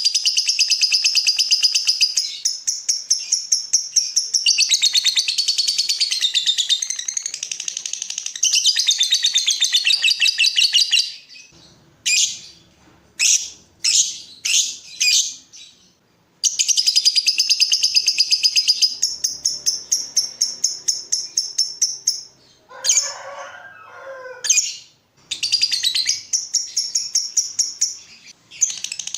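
Lovebird chattering song: long runs of very fast, evenly repeated high chirps, the long rolling 'ngekek' style. Around the middle it breaks into a few separate chirps, and a little before the end a short, lower, harsher call cuts in before the fast chattering resumes.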